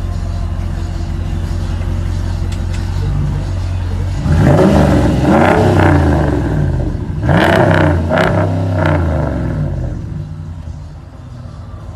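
2016 Ram pickup's Hemi V8 through a straight-pipe exhaust, idling and then revved: one long rev about four seconds in, then a second rev with quick blips about seven seconds in, before it drops back to idle.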